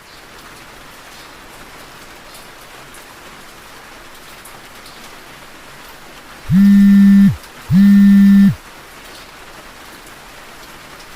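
Steady rain falling, and a little past halfway two loud, low electronic buzzes, each just under a second long, one right after the other.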